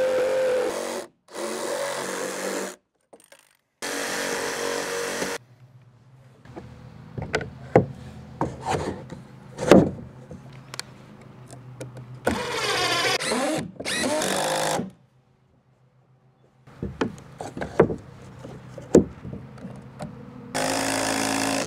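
Handheld cordless power tool working on the wood framing in several runs of one to two seconds, each stopping abruptly, with scattered knocks and taps of wood being handled between the runs.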